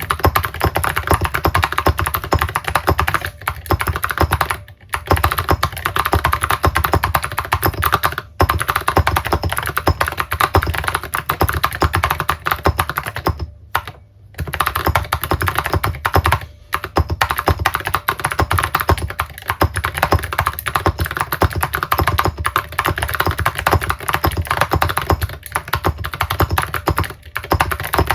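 Fast continuous typing on a mechanical keyboard with clicky Cherry MX Blue switches and ceramic keycaps: dense sharp clicks with brief pauses, a longer one about halfway.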